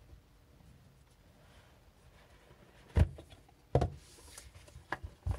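Cardboard pager box being handled and its lid opened: a few sharp taps and clicks of card against card and fingers. The first comes about three seconds in, after a faint, near-quiet stretch.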